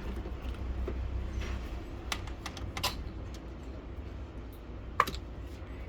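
Scattered sharp clicks and taps of a screwdriver and hands working on a laser printer's plastic housing while it is taken apart, the loudest click about five seconds in.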